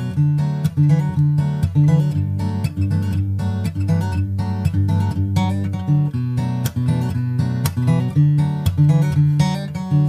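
Background music: an acoustic guitar piece, strummed in a steady rhythm.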